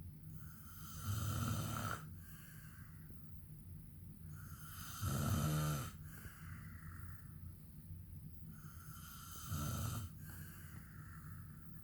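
A man snoring in his sleep: three low snores about four seconds apart, each lasting about a second, with quieter breathing between them.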